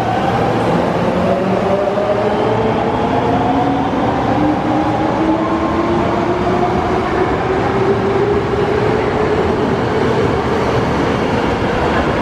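Osaka Metro 22 series subway train accelerating away from a station: the traction motor whine rises steadily in pitch, several tones climbing together over the rumble of the wheels on the rails.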